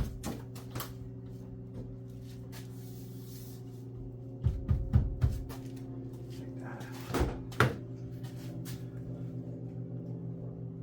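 Sharp plastic clicks and knocks as a car door's window weatherstrip is pressed and snapped into place along the door: a few near the start, a quick run of four about halfway through, and two more a little later.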